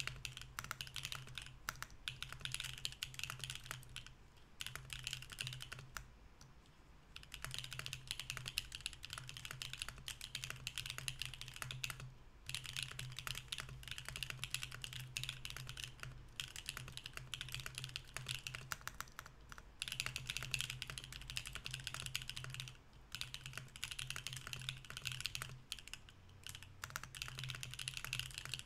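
Fast, continuous typing on a Mercury65 mechanical keyboard with BSUN Anya switches in an aluminium plate with no foam, a dense run of key clicks broken by a few short pauses.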